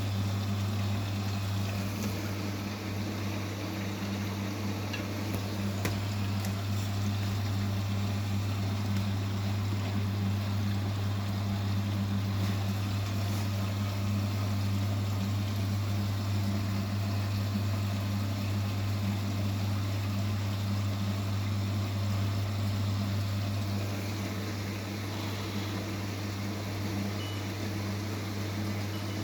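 Vestel CMI 97302 washing machine filling with water at the start of a wash: a steady low hum with water rushing into the machine, easing slightly near the end.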